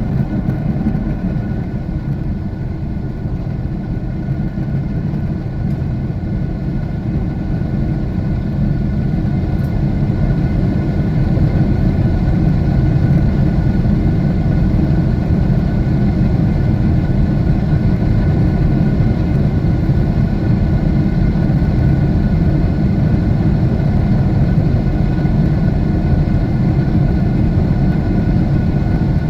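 Jet airliner engine noise heard inside the passenger cabin: a steady, deep rumble with a faint thin hum above it, growing a little louder about a third of the way in.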